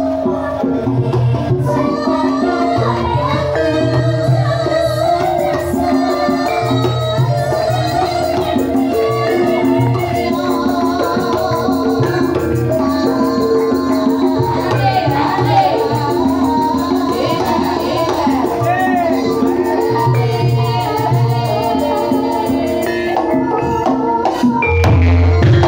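Javanese gamelan music with a singer's wavering vocal line over sustained metallophone tones and a repeating low pulse.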